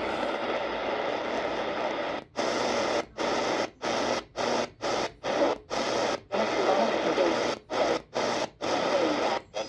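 Radiwow R-108 DSP portable receiver's speaker giving shortwave static with a weak, noisy station behind it on the 49 meter band. From about two seconds in it is tuned up step by step, and the audio cuts out briefly at each step, about two dropouts a second, with hiss and snatches of stations in between.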